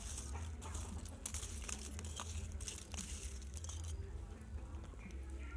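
Crackling from a bed of charcoal embers and ash: many sharp clicks and a rustling hiss that thin out about four seconds in, over a steady low rumble.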